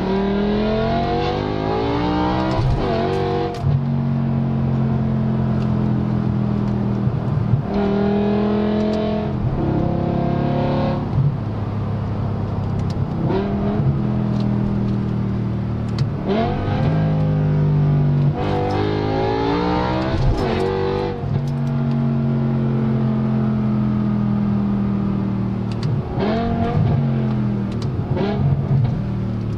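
BMW S85 V10 engine heard from outside the car, revving up again and again in rising pulls of a few seconds each, with steadier, lower running in between.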